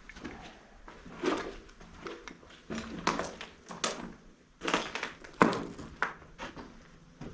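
Footsteps crunching and scraping over rubble and rubbish on a brick shelter floor: irregular crunches spaced half a second to a second and a half apart, the loudest about five and a half seconds in.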